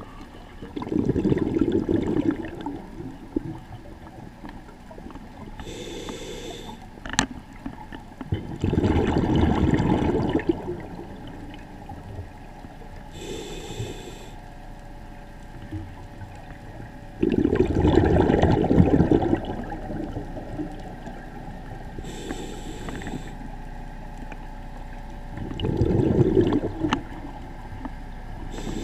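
Scuba diver breathing through a regulator underwater: four loud bubbling exhalations about eight seconds apart, each followed by a fainter hissing inhalation through the regulator. A single sharp click comes a little after the first inhalation.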